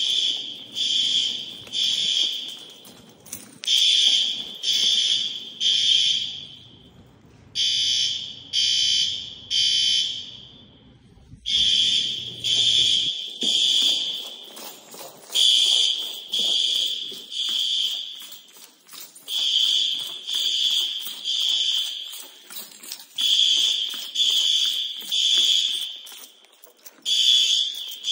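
Building fire alarm horns sounding the temporal-three evacuation signal: three loud, high-pitched blasts, then a pause, repeating over and over, with several horns slightly out of step.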